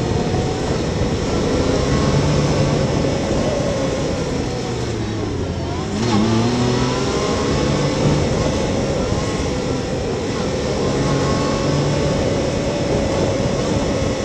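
Yamaha YXZ1000R side-by-side's three-cylinder engine running under way. Its pitch sags just before six seconds in, then climbs again as it accelerates.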